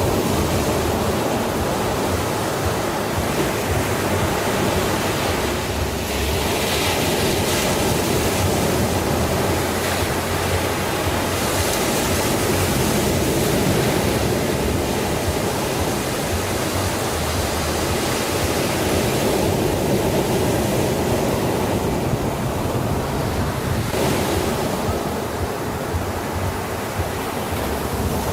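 Sea surf: a steady rush of waves that swells and eases in slow surges every several seconds.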